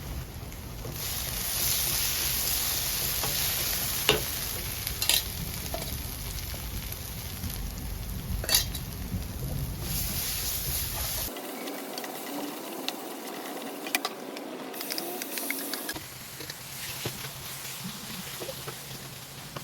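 Chicken pieces sizzling as they fry in a pan while being stirred, with a few sharp knocks of the spatula against the pan. The sizzle changes abruptly about 11 and 16 seconds in.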